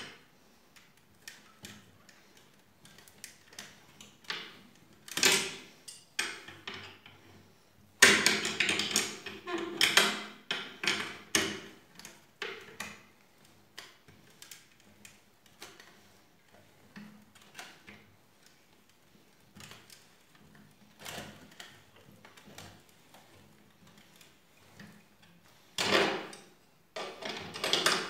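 Hand wrench tightening a bolt through a wooden chair frame: irregular metal clicks and scrapes, with louder runs of clatter about a third of the way in and again near the end.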